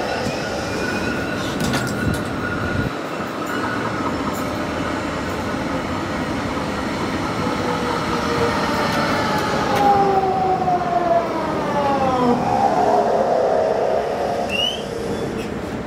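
Electric rail vehicle running on the track, its drive whining in several tones that glide down in pitch about two thirds of the way in.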